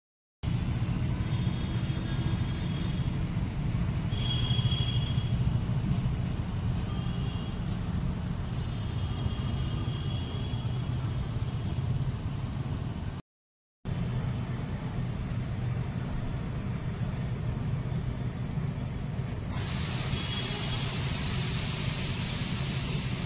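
Steady low outdoor rumble, with a few faint high thin tones in the first half, a brief cut to silence about 13 seconds in, and a hiss joining about 20 seconds in.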